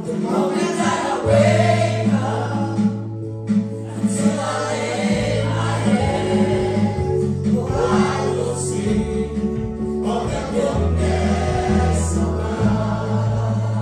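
Choir singing gospel music with band accompaniment: held bass notes that change every second or two under the voices, and a steady beat.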